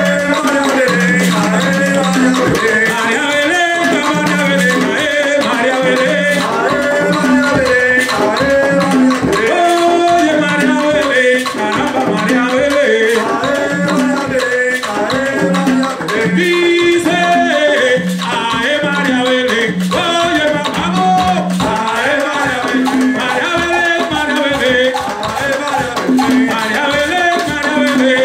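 Live rumba guaguancó played on conga drums, with sticks beating a rhythm on wood and a voice singing over the drums.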